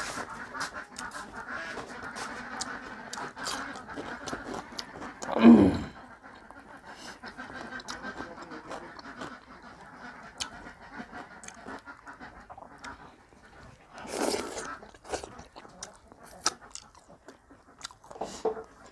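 Close-miked eating sounds: wet chewing and mouth smacks as a man eats dhido with his hands. About five seconds in there is a brief loud sound that falls in pitch, and there are two softer ones later.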